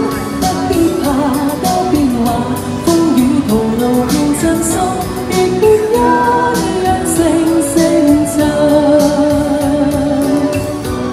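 A woman singing a pop song into a handheld microphone over a backing track with a steady beat. Near the end she holds a long note with vibrato.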